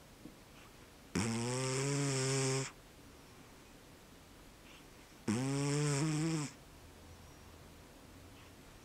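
An American Shorthair cat snoring, with two long, pitched, raspy snores about four seconds apart that sound like an old man's snoring.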